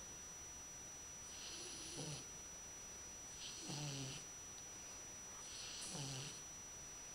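Nine-week-old chocolate Labrador puppy snoring in its sleep: three faint snores about two seconds apart, each a breathy hiss with a low buzz that drops in pitch at its end.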